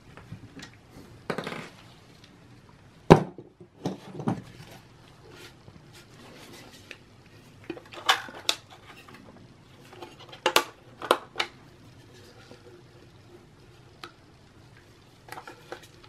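Scattered metallic clicks, knocks and a short scrape from a small screwdriver and the aluminium Mac mini chassis being handled while the corner screw holding the power supply is taken out; the loudest knock comes about three seconds in.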